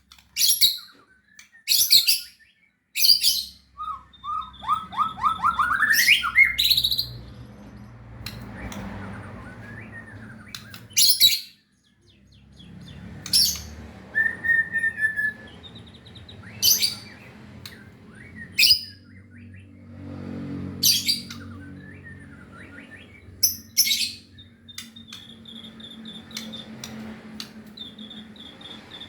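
White-rumped shama (murai batu) song from a lure recording used to get a silent captive shama singing: loud, sharp high call notes every second or two, a fast rising run of notes a few seconds in, and a short clear whistle about halfway, over a low steady hum.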